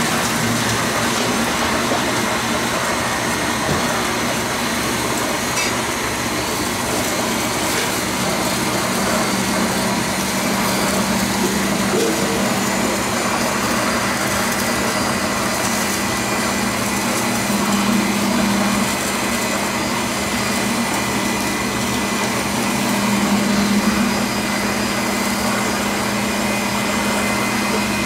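Handheld gas kitchen torch flame burning steadily as it sears the tops of salmon nigiri, a continuous hiss with a low hum, swelling slightly a couple of times.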